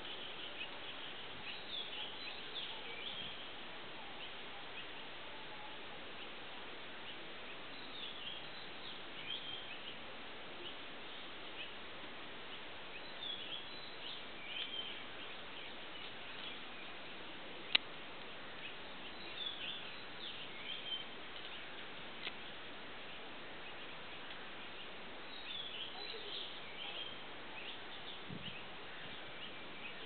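Birds chirping in short clusters every few seconds over a steady background hiss, with one sharp click about two-thirds of the way through.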